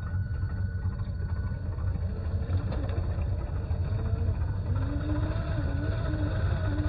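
Simulated truck engine sound from the RC crawler's onboard electronic sound kit, a steady low rumble through a small speaker. About halfway through its pitch begins to waver up and down with the throttle as the truck crawls over the rocks.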